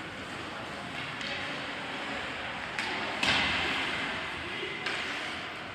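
Sharp knocks of ice hockey play, puck and sticks against the boards and ice, echoing around the arena: several, the loudest about three seconds in. Spectators talk underneath.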